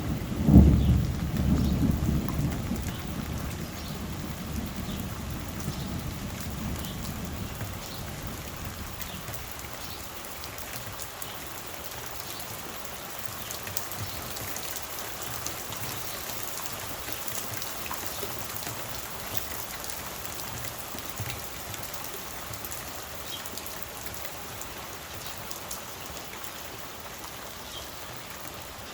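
Thunder peaks about half a second in and rumbles away over the next several seconds. Steady rain falls throughout, with scattered drops ticking on a surface.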